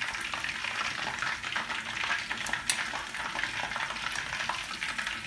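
Boiled chicken leg and thigh pieces frying in hot oil in a pan, a steady sizzle and crackle, with two sharp clicks about two and a half seconds in.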